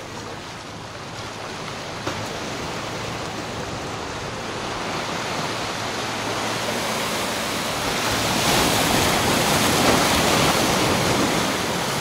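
Sea surf washing over volcanic boulders, a steady rush that swells to its loudest about two-thirds of the way in and eases near the end.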